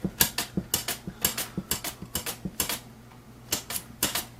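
Cucumbers being sliced thinly on a mandoline slicer: quick strokes across the blade, each giving a sharp click, about four a second, with a short pause about three seconds in.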